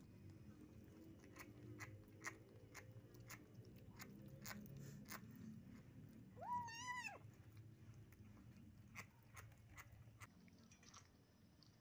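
Kitten chewing steamed shark meat: a run of small wet clicks and smacks as the sticky flesh clings to its mouth. A single short meow, rising then falling, comes a little past halfway and is the loudest sound.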